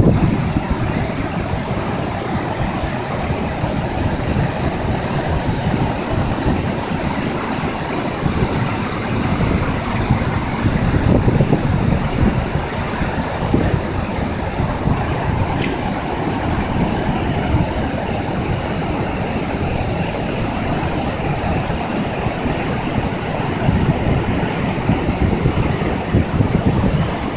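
Floodwater rushing and churning through the open sluice gates of a river barrage: a steady, loud wash of white water, with wind buffeting the microphone.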